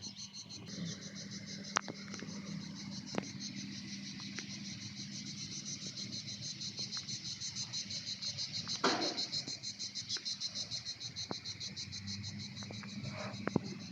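A chorus of chirping insects pulsing steadily about four times a second, over a low hum, with a few sharp clicks and a brief louder sweep about nine seconds in.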